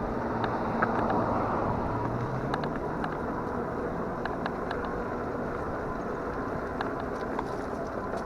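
Steady rushing noise of riding an electric fat-tire bike: wind and fat tyres rolling over the ground, with scattered small clicks and rattles.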